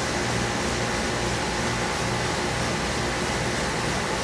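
Steady whoosh and low hum of a running fan, unchanging throughout, typical of a running air-conditioning condenser fan.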